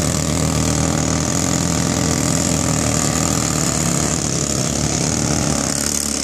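Pneumatic jackleg rock drill running steadily into a rock block, with a loud hiss of compressed-air exhaust.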